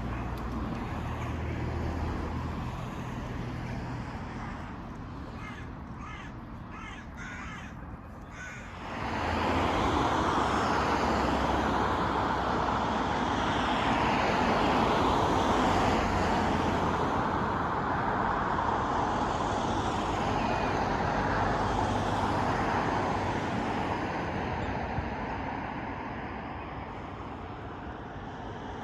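Crows cawing a few times, then a loud, steady rushing noise that swells up about nine seconds in, in the manner of passing traffic.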